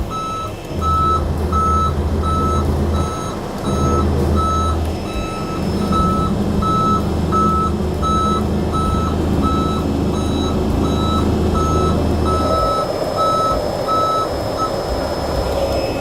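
Dump truck's tipper warning beeper sounding about twice a second while the body is raised, over the low drone of the running truck engine. The beeper is a signal for people to keep clear and not stand behind the truck. The engine note changes about three-quarters of the way through, and the beeping stops shortly before the end.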